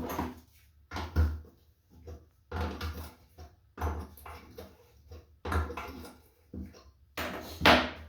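Six short bursts of metal scraping and knocking about a second apart, the loudest near the end, from an adjustable wrench tightening the nuts that hold a toilet bowl to the floor.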